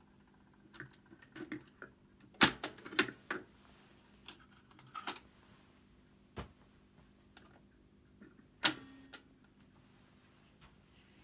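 Mechanical clicks and knocks of a Hacker Cavalier GP15 record player's changer arm being handled and a 7-inch single being lifted off the spindle. The loudest knocks come in a cluster about two and a half seconds in, then one sharp knock near the end with a brief ring. A faint steady low hum runs underneath.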